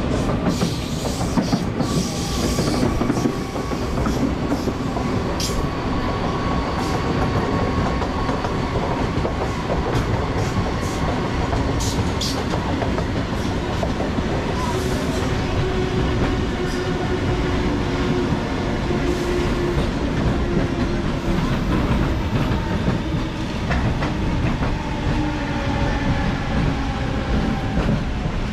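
Train ride heard through an open carriage window: steady rumble of the wheels, with sharp clicks of wheels over rail joints in the first few seconds. A double-deck electric train passes close alongside on the next track.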